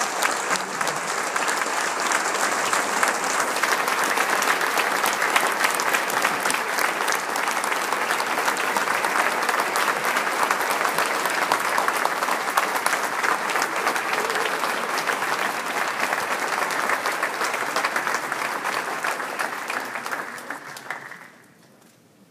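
Large audience applauding: dense, steady clapping from many hands that tails off and stops about a second before the end.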